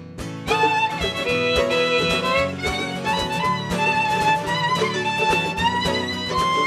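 Live acoustic band playing an instrumental passage with no vocal: a held chord fades, then about half a second in a wavering melody line comes in over steady strummed chords.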